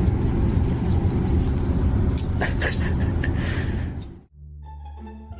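A loud, steady low rumble with a few knocks about two to three and a half seconds in. It cuts off suddenly about four seconds in, and quieter music with plucked strings follows.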